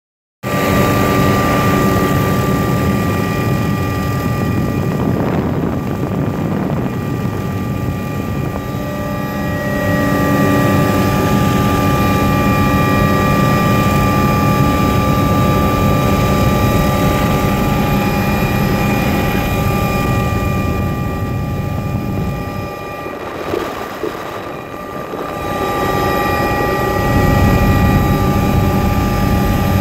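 Helicopter heard from inside the cabin in flight: a loud, steady drone of rotor and engine with several fixed high whining tones over it. The level dips briefly about three-quarters of the way through.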